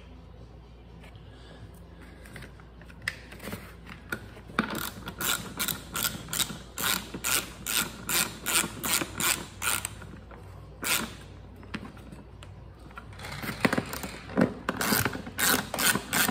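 Socket ratchet wrench clicking in runs of quick back-strokes as a battery terminal nut is tightened, with a pause in the clicking about two-thirds in.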